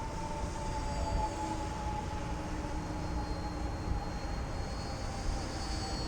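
Electric motor and propeller of a radio-controlled model airplane in flight, a steady whine that sinks slowly in pitch, over wind rumble on the microphone.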